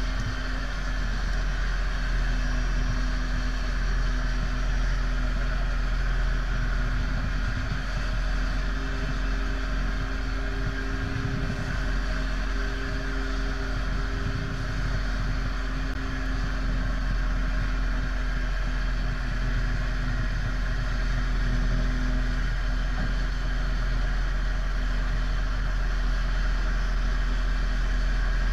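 Pushback tug's engine running steadily under load as it pushes a jet airliner back by its towbar. A deep, even rumble with a constant hum over it.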